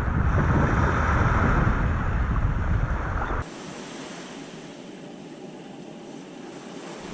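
Wind buffeting the microphone over the rush of water, a loud low rumble. About three and a half seconds in it cuts abruptly to a quieter, thinner hiss of wind and surf.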